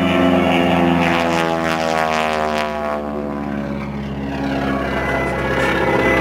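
Propeller-driven aerobatic plane making a pass, its engine and propeller drone dropping in pitch as it goes by, then carrying on more steadily.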